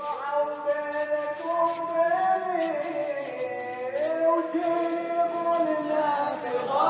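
Slow sung chant: long held notes that slide slowly from pitch to pitch, with a louder, fuller passage starting near the end.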